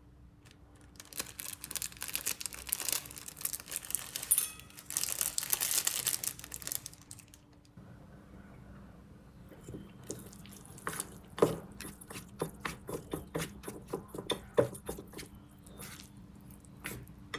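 A plastic seasoning sachet torn open and crinkled as its dried vegetable flakes are shaken out onto the noodles. Then wooden chopsticks click and scrape against a stainless steel bowl while tossing the sauced instant noodles, a run of sharp clicks several times a second.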